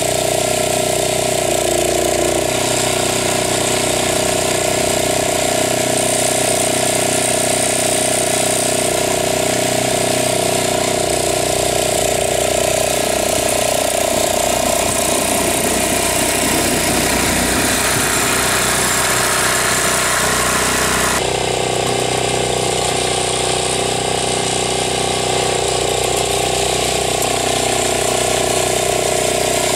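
A ride-on garden tractor's small engine runs steadily while the tractor pushes snow with a front blade. In the middle the note turns rougher and noisier for several seconds, then returns abruptly to its steady hum about two-thirds through.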